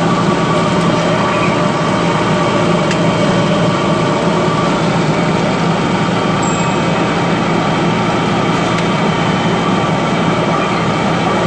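Large lathe trepanning Inconel 718 at 22 rpm under flood coolant, the tool cutting smoothly: a steady, even machining noise with a constant low hum.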